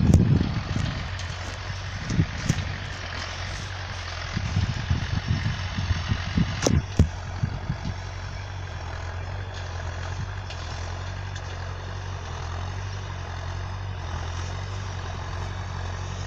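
John Deere 310A backhoe's engine running steadily as it pulls a disk harrow. Gusts of wind hit the microphone in the first second and again from about four to eight seconds in, with a sharp click near seven seconds.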